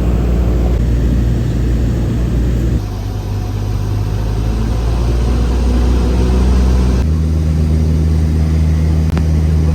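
Light aircraft's 180-horsepower carbureted piston engine running with a steady drone, which changes pitch suddenly about a third of the way in and again about two-thirds through.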